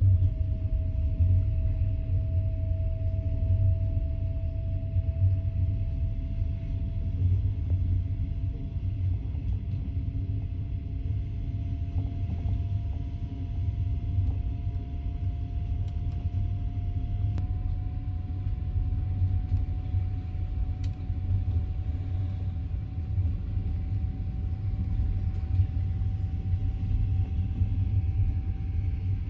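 Train running along the track with a steady low rumble, and a thin whine that slowly rises in pitch throughout.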